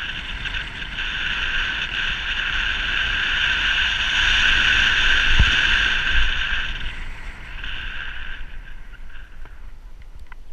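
Wind rushing over the camera microphone during a fast bicycle descent, with low road rumble. It builds to its loudest about five or six seconds in, then falls away, with a few light clicks near the end.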